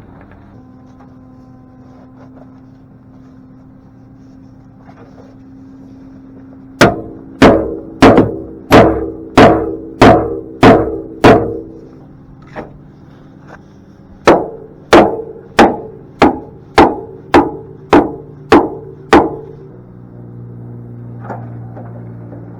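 Metallic hammer blows in two runs of about eight and nine evenly spaced strikes, about one and a half a second, each blow ringing briefly, with a pause of a few seconds between the runs.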